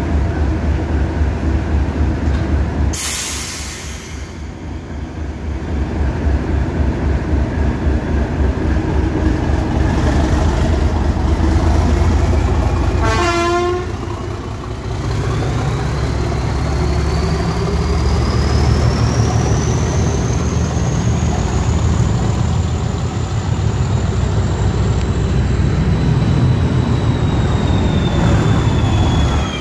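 Class 37 diesel locomotive 37254 with its English Electric V12 engine, a deep pulsing diesel rumble, with a brief loud hiss about three seconds in. About halfway the engine opens up as the locomotive pulls away, and a high turbocharger whine rises steadily in pitch over it.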